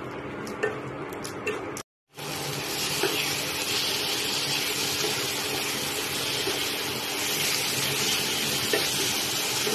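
Potato and tomato masala being bhuna-fried in a kadhai: a few soft spatula scrapes, a brief dropout about two seconds in, then a steady sizzling hiss as the spiced mixture fries with a splash of water.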